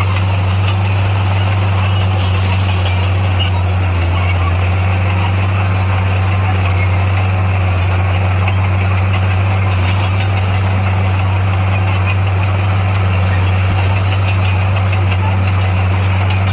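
Heavy diesel engine of earthmoving machinery running steadily at an even, unchanging pitch, with a strong low hum.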